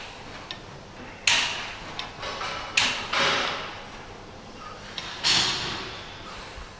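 Leg extension machine worked through reps: the weight stack and lever arm slide and knock. Each rep gives a sharp hit followed by a sliding hiss, about every one and a half seconds.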